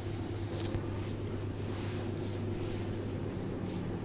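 Steady low mechanical hum, with soft rustling of handling noise on the microphone now and then.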